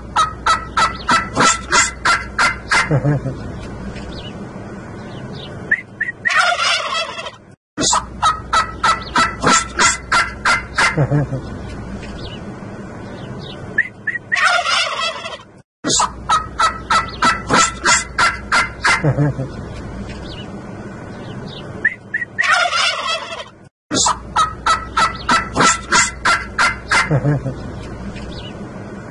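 Domestic turkey toms gobbling: a long gobble of quick repeated notes lasting about three seconds, then a shorter burst of calls. The same stretch of gobbling repeats about every eight seconds.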